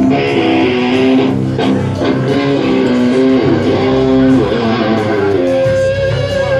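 Live amplified electric guitar playing a single-note melodic line, held notes stepping up and down with a wavering bend about halfway through; the low bass drops out for most of it and comes back near the end.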